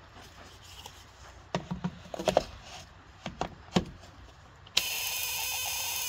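A wooden Ford Model T trembler coil is set into a coil tester with a few knocks and clicks. Near the end the coil starts buzzing steadily and suddenly: its vibrator points are chattering as the tester fires it.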